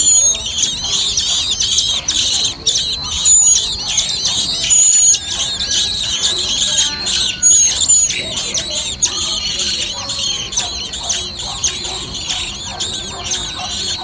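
Common blackbird nestlings begging in a dense, continuous chorus of rapid, high-pitched calls while a parent feeds them, with a few louder short whistles in the first half. The chorus grows a little quieter in the second half.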